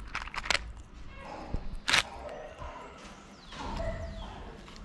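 Cat eating dry kibble and wet food from a plastic tray: a few sharp crunches and clicks in the first two seconds, the loudest about two seconds in.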